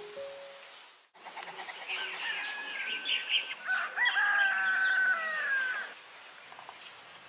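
A rooster crowing: one long held call that falls in pitch at the end, preceded by shorter chirping calls from the flock.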